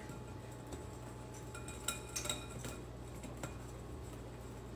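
Wire whisk stirring dry powdered sugar and lemon zest in a glass mixing bowl, its wires clinking lightly and irregularly against the glass a few times.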